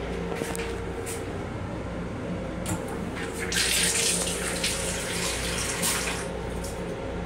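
Restroom sink faucet in an M7 railcar running, a thin stream of water splashing into the basin. It starts about halfway through and stops after a couple of seconds.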